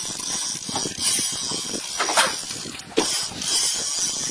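Spinning fishing reel working against a hooked fish on a bent rod: a steady high hiss with a few sharp mechanical clicks.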